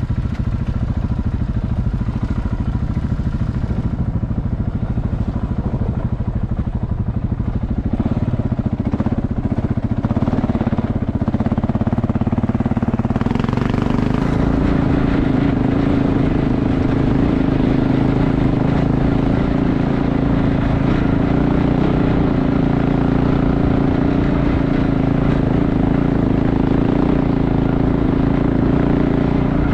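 KTM 690 Enduro's single-cylinder engine pulling under way. Its pitch climbs about halfway through, then holds steady.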